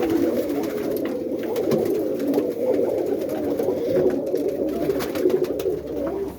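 A loft full of roller pigeons cooing together, a steady overlapping murmur of many birds, with a few faint clicks among them.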